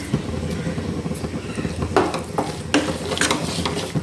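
Squid and spiced onions sizzling in a pan while being stirred, with a spoon scraping against the pan several times in the second half.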